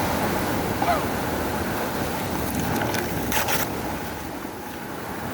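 Steady wind and sea-surf noise with wind buffeting the microphone, and a brief crackle about three and a half seconds in.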